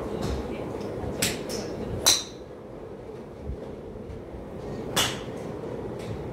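Golf driver striking a teed ball: a sharp metallic crack with a brief ring about two seconds in, and another shot's crack about three seconds later, over a steady background hum.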